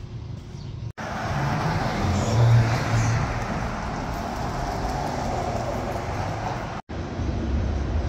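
Street traffic: a car passing close by, its engine and tyre noise swelling to a peak about two and a half seconds in, then settling to a steady hum. The sound drops out abruptly for an instant about a second in and again near the end.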